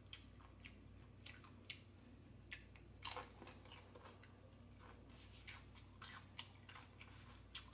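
Chewing crunchy tortilla chips from a taco salad: scattered sharp crunches and mouth clicks, the loudest about three seconds in.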